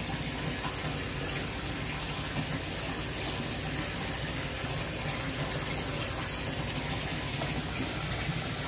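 Steady rush of water moving through a fish pond from a submersible pump, with a low steady hum underneath.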